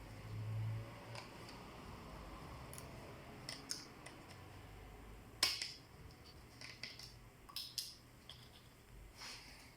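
Scattered small clicks and taps of plastic and metal laptop parts and tools being handled while a Lenovo IdeaPad Z500 is taken apart. There is a brief low hum near the start and one sharper, louder click about halfway through.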